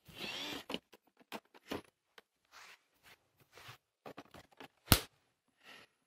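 Handling noise as a Roomba robot vacuum is carried over carpet: a brief rustle at the start, then scattered light clicks and knocks, and one sharp, loud click about five seconds in.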